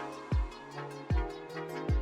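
Electronic dance music with a slow, heavy kick-drum beat, about one hit every 0.8 seconds, over sustained synth tones and fast hi-hat ticks.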